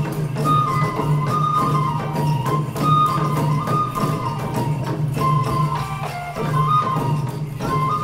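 Japanese folk music for a horse dance: a high transverse flute plays a winding melody over steadily beaten taiko drums and other percussion.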